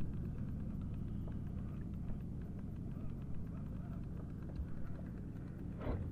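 Low steady rumble of wind buffeting the microphone on a small boat at sea, with a few faint clicks and a short rustle near the end.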